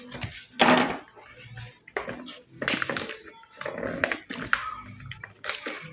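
Irregular knocks, clicks and rustles of goods being handled and set down on shop shelves, over background music.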